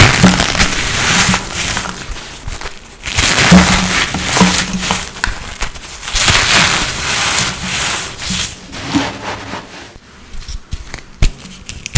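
Blocks of reformed holi colour powder being crushed, crunching and crumbling in several bursts with sharp crackly snaps, easing off near the end.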